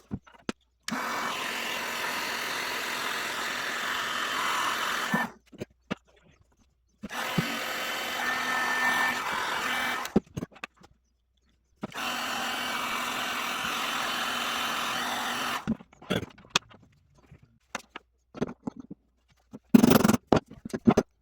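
A small power tool running in three steady bursts of about four seconds each, stopping sharply between them, followed by scattered clicks and knocks near the end.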